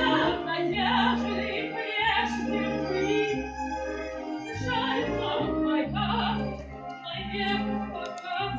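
Music: a woman singing in an operatic style, her voice wavering with vibrato, over an accompaniment of held low bass notes that change about once a second.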